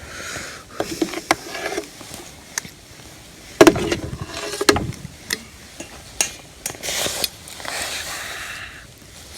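Scattered clinks, knocks and scraping of camp cookware and utensils being handled, the loudest knocks about three and a half and four and a half seconds in.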